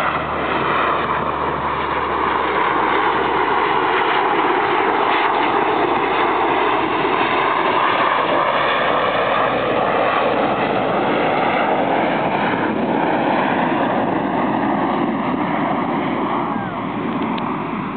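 Military transport aircraft passing overhead, its propeller engines giving a steady, loud drone with a slowly shifting pitch that eases a little near the end.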